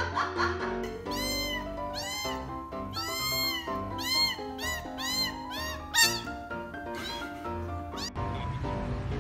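A cat meowing over and over, a string of about eight short meows that each rise and fall in pitch, over background music. A little before the end the meows stop and a steady rushing noise comes in.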